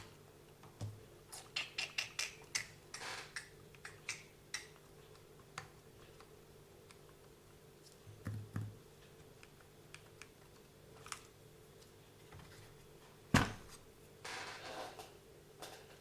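Light clicks and taps of small plastic RC car parts being handled. There is a quick run of them a couple of seconds in, one sharper click about two-thirds of the way through, and a brief rustle after it.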